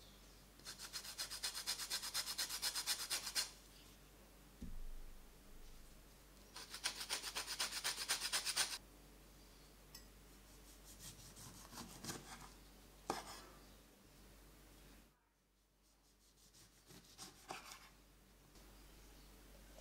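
Orange peel scraped on a fine rasp grater: two runs of quick, even strokes, several a second. Then a chef's knife slicing through oranges on a wooden cutting board, with scattered cuts and a sharp knock of the blade on the board.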